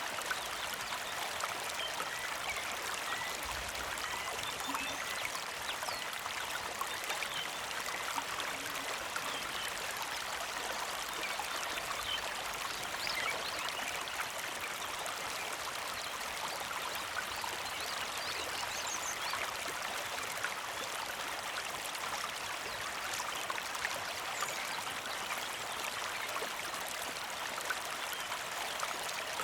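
Small creek flowing steadily, a continuous trickling and splashing of water over rocks.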